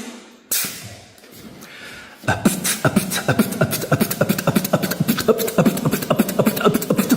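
Beatboxing-style mouth percussion: two sharp hits about half a second apart, then from about two seconds in a fast run of clicks and pops, about six a second, with short pitched tones mixed in.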